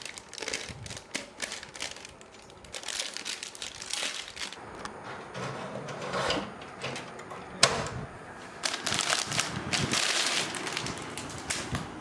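Hands handling computer parts: a foil anti-static bag crinkling as it is unwrapped, with irregular clicks and taps of plastic parts.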